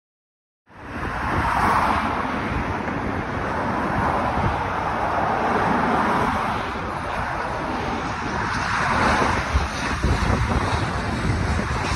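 Outdoor rush of wind buffeting the microphone over steady road traffic and the engine noise of a jet airliner descending on final approach. It starts abruptly about a second in.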